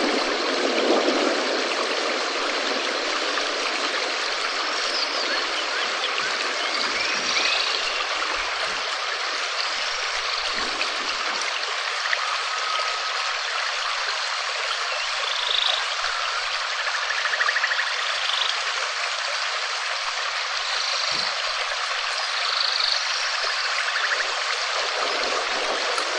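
Steady rain hiss, with a scatter of short high chirps now and then.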